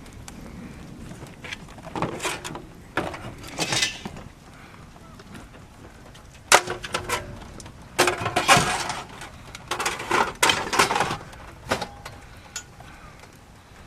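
Hard objects being handled and dropped, clattering and clinking in bursts with metallic ringing, as salvaged junk is heaved and shifted.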